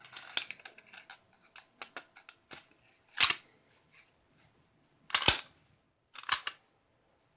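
Metal parts of a Norinco NP34 9mm pistol being handled, with a run of small clicks, then three loud sharp metallic clacks a second or two apart as the slide goes back onto the frame and is worked.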